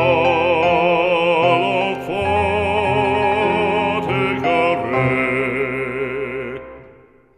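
Music: a French hymn sung with strong vibrato over sustained instrumental accompaniment, fading out near the end.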